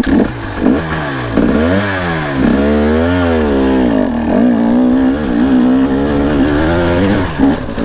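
Dirt bike engine revving up and down in repeated swells, then holding steadier high revs, as the rider works the throttle up a steep, slick climb.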